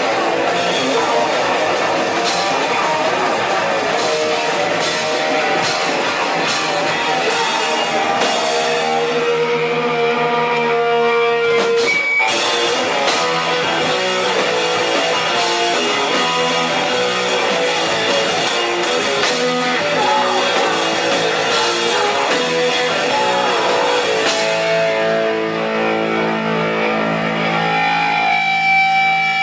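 Live hardcore thrash punk band playing loud: distorted electric guitar and bass over a pounding drum kit. About a third of the way in the cymbals drop away for a few seconds, leaving guitar chords ringing, before a sharp hit brings the full band back. Near the end they drop away again and a guitar rings on held notes.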